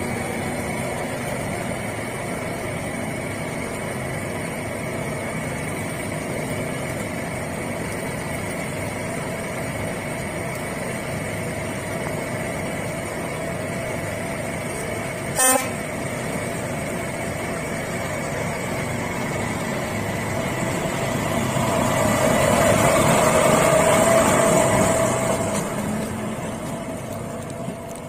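Diesel locomotive engine running steadily with a few steady whining tones, growing louder as it passes close about three quarters of the way through, then fading. A brief sharp sound about halfway.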